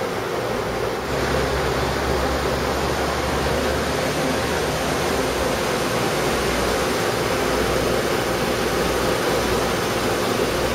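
Steady rushing and rumbling running noise of a moving Daewoo-built Jiji Line train, with a faint steady whine; it grows a little louder about a second in.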